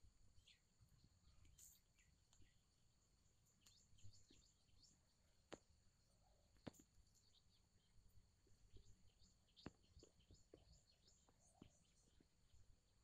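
Near silence: faint outdoor ambience with a faint steady high hiss and scattered faint clicks and chirps.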